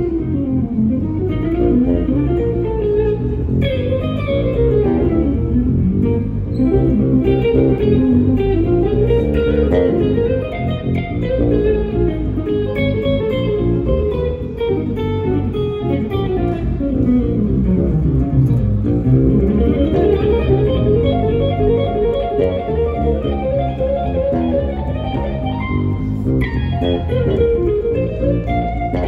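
Live instrumental duo of electric guitar and bass guitar, with fast runs of notes sweeping up and down over a steady bass line.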